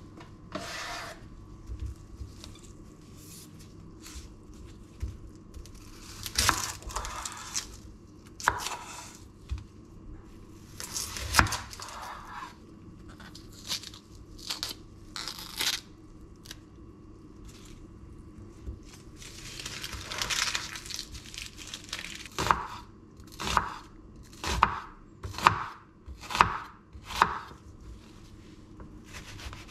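Dry onion skin being torn and peeled off by hand, papery tearing and crinkling, followed by a chef's knife cutting through the onion onto a bamboo cutting board in about six sharp chops roughly a second apart.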